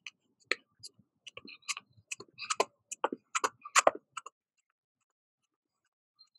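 Footfalls of running shoes tapping on an exercise mat while jogging in place with butt kickers: light, uneven taps about two or three a second that stop about four seconds in.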